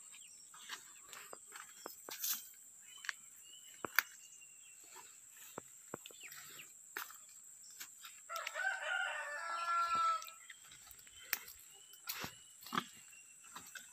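A rooster crows once, a single call about two seconds long a little past the middle, over scattered light clicks and rustles.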